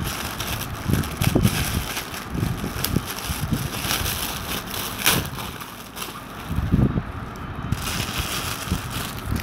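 Cellophane gift wrap crinkling and rustling as it is pulled off a ceramic pot, with a few dull bumps from handling close to the microphone.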